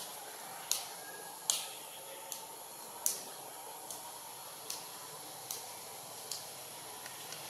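A steady high-pitched hiss, with a sharp tick repeating evenly about every 0.8 seconds, eight or nine times.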